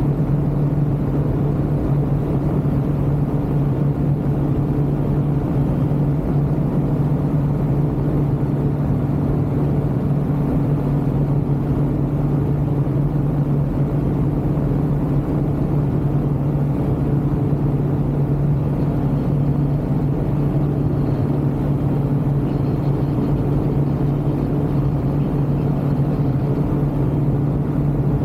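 Ultralight aircraft engine and propeller droning steadily in flight, holding one constant pitch throughout.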